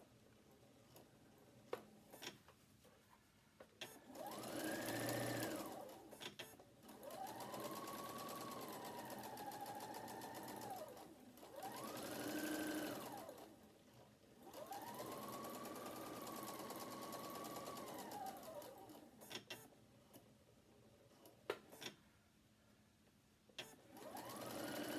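Electric domestic sewing machine stitching fabric in about five separate runs. Its motor whine rises as it speeds up and falls as it slows to each stop, with short clicks of handling in the pauses between runs.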